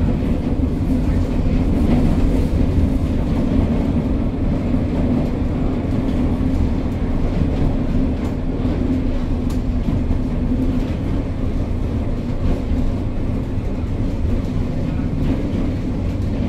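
Historic tram running along its rails, heard from inside the wooden passenger car: a steady low noise of wheels and running gear with a few faint clicks.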